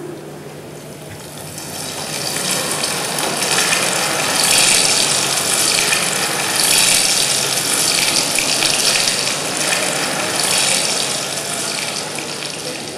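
Rushing, splashing water, building up about two seconds in and then surging in several waves.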